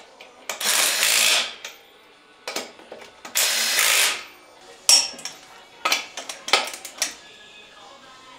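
Cordless impact wrench running lug nuts onto a wheel in two bursts of about a second each, then a scatter of sharp metallic clicks and clinks.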